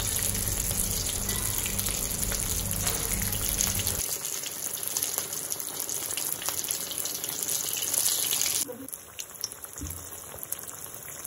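Besan-coated bread slice deep-frying in hot oil in a kadhai: a steady sizzle of bubbling oil that drops sharply in level about nine seconds in.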